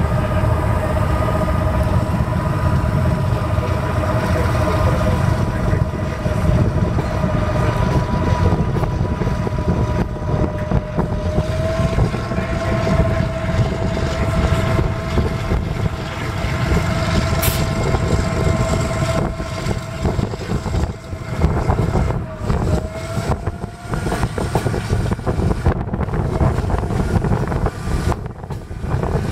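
MDmot diesel railcar running along the line: a steady deep rumble with a high whine held at one pitch, which rises slightly a couple of times, and some dips in loudness near the end.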